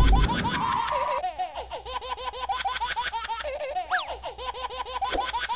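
Edited-in cartoon laughter sound effect: a fast, evenly repeating run of high, bouncing 'ha-ha' chirps over quick ticking, with one short falling whistle about four seconds in.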